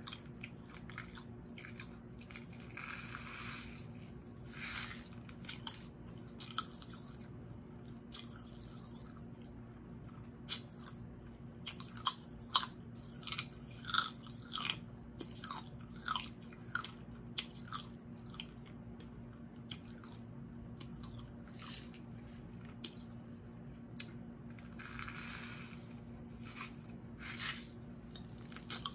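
Strawberry Pop Rocks crackling and popping in the mouth while being chewed, close to the microphone: irregular sharp pops, thickest about halfway through.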